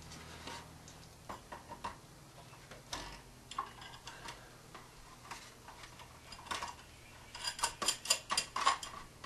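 Scattered light clicks and taps as an umbrella top is screwed down onto the threaded rod of a statue water feature, then a quick run of sharp, ringing ticks near the end as it is twisted on.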